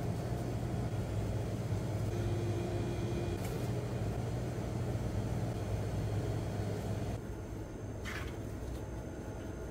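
A steady low mechanical hum, with a short scrape about eight seconds in.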